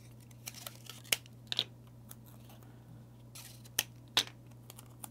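Red cardstock and double-sided tape being handled while the tape is applied along a paper fold: a string of short, crisp paper clicks and crackles at irregular moments.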